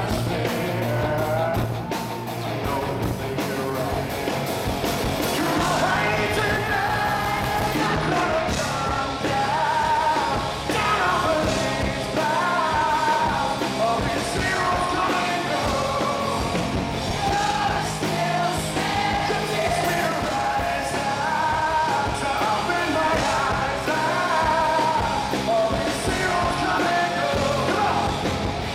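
Live rock band playing, with a male lead singer singing over electric guitar and drums, heard from the audience.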